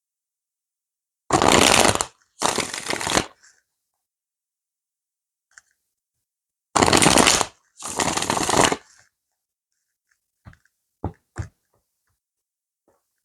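A deck of tarot cards shuffled in two bouts, each a pair of dense papery rustles, followed by a few light taps and clicks as cards are laid out.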